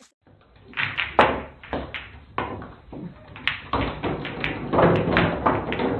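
A busy run of knocks, taps and thuds, coming thicker and louder in the second half, over a low hum.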